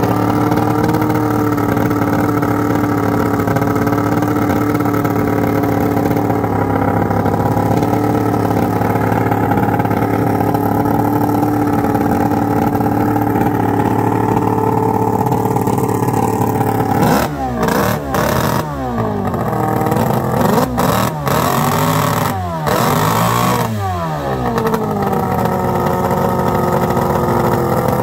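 Chrysler two-stroke racing outboard with open stacked exhausts being test fired, running steadily. A little over halfway through it is blipped several times, the pitch sweeping up and falling back, then it settles to a steady run again.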